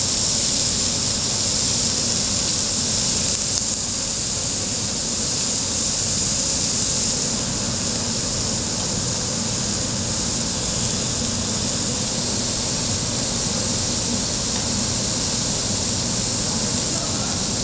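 Beef sizzling on a hot cast-iron cauldron-lid grill: a steady, loud hiss.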